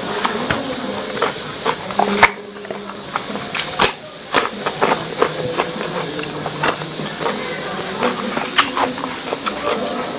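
Close-miked mouth sounds of a person eating noodles: chewing and lip-smacking heard as a stream of irregular wet clicks, the sharpest about two and four seconds in.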